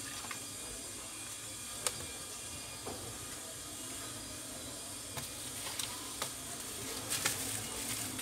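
Light knocks and clicks as a laptop is handled and set down on a workbench, over a steady background hiss. Near the end comes a crinkling rustle of a plastic bubble-wrap sheet being spread out.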